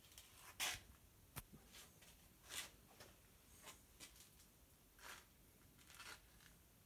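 Near silence broken by faint, scattered rustles and scuffs, about six in all, with one sharp click about a second and a half in.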